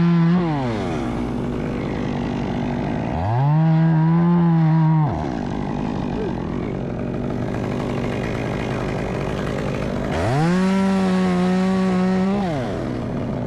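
Two-stroke chainsaw revving up to high speed in bursts of about two seconds, three times, dropping back to a low idle between them.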